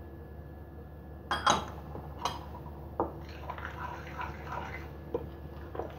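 A metal spoon clinks against a glass mixing bowl a few times. It then stirs and scrapes through flour and wet ingredients for about two seconds.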